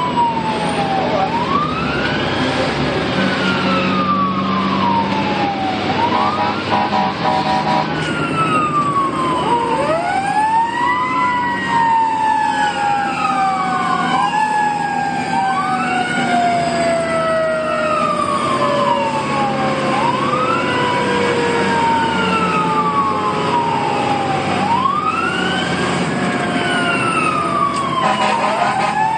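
Fire engine siren wailing in repeated cycles, each rising quickly and falling slowly over several seconds, with overlapping siren tones at times, over the truck's running engine.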